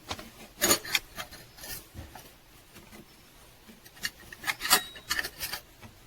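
Spanner working on the tensioner pulley's mounting bolt as it is tightened: scattered metallic clicks and rasping scrapes, in a couple of short clusters, with a busier run near the end.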